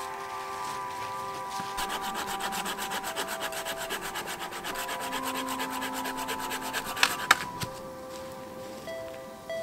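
Hand saw cutting through a dead branch in quick, even strokes for about five seconds, followed by two sharp cracks near the end of the cut.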